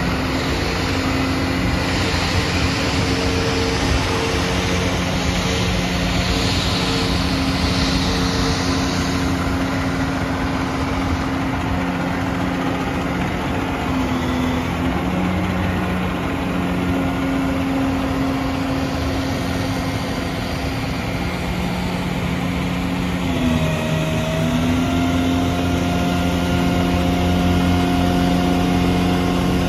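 Cummins ISB diesel engine of a rear-loader garbage truck idling steadily. About three-quarters of the way through its pitch dips briefly and recovers as a load comes on, and a higher steady whine joins it: the hydraulics raising the packer tailgate.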